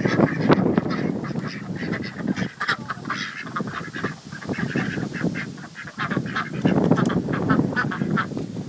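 A flock of domestic ducks quacking and honking, many short calls repeated and overlapping.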